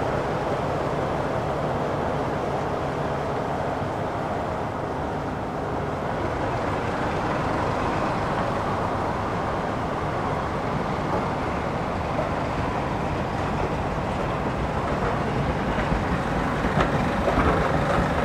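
Diesel locomotive engine running steadily, getting a little louder near the end, where a few clicks come through.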